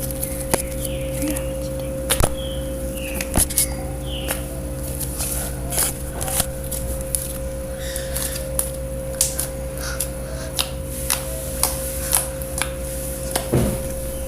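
Slime being squeezed and worked by hand, making irregular sticky clicks and pops, roughly one or two a second, over a steady hum.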